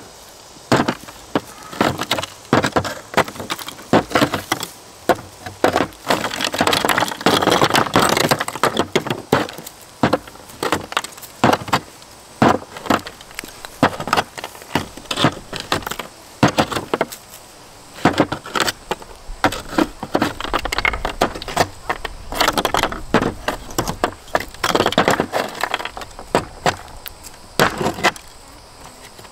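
Hammer blows on a chisel knocking set mortar out of the ribbed underside of a plastic shower base, the mortar cracking and breaking away in chunks. Irregular runs of sharp strikes with brief pauses between.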